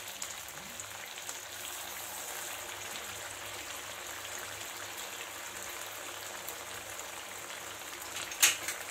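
Potato patties shallow-frying in medium-hot oil in a pan: a steady, even sizzle with fine crackling. A brief sharp clatter near the end.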